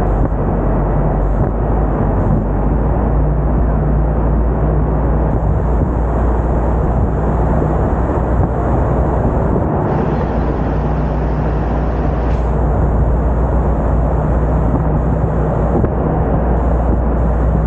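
An open-top double-decker bus driving through a road tunnel: a loud, steady roar of engine and road noise, heaviest in a deep rumble.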